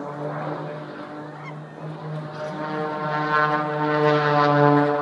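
Propeller engine of an aerobatic plane droning overhead with a steady buzzing pitch, growing louder over the last few seconds as it comes closer.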